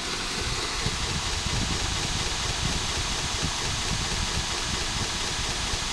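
KMG belt grinder running with a 120-grit abrasive belt, its motor and the belt over the wheels making a steady hiss. It comes up to a higher speed at the start, then runs evenly.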